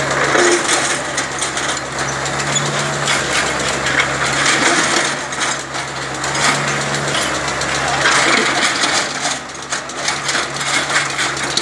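Tracked excavator's diesel engine running with a steady low hum that fades about two-thirds of the way through, under dense clattering and clinking of stone rubble.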